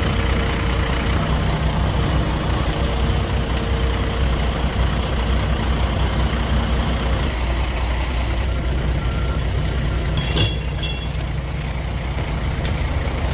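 Heavy log truck's diesel engine running steadily under load. About ten seconds in there is a brief burst of high, sharp chirps or squeals, such as brakes or a metal part under strain.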